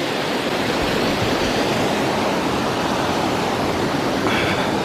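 Steady rush of a waterfall: falling water making an even, unbroken roar.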